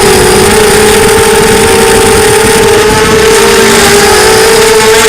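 Brushless motors and propellers of a 250-size FPV quadcopter (Arris 2204 2300KV motors) whining loudly in flight, heard up close from the onboard camera. The pitch holds steady, dips slightly about four seconds in, then comes back up.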